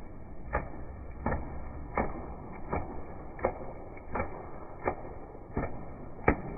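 Dachshund barking repeatedly, about nine short barks evenly spaced a little under one a second, the last the loudest, over a steady background noise.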